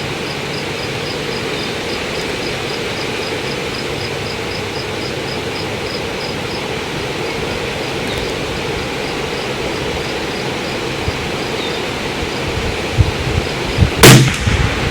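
Strong wind rushing and buffeting on the microphone, with a single sharp shot from a Bergara BMR bolt-action .22 LR rifle near the end.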